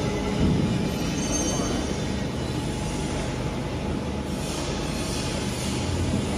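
CNC four-roller plate rolling machine running: a steady mechanical rumble with a faint higher whine.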